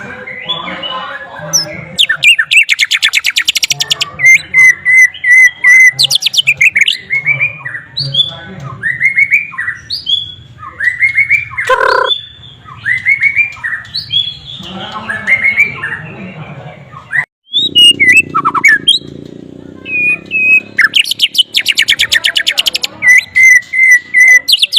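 White-rumped shama (murai batu) singing a long, varied song of clear whistled notes, rising and falling glides and fast chattering trills, with phrases mimicked from the sikatan londo flycatcher worked in.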